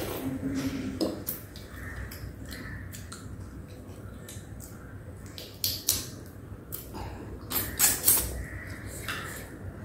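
Close-up eating sounds: chewing of crab and prawn, with sharp crackles and snaps as crab shell is pulled apart by hand, loudest about 6 and 8 seconds in.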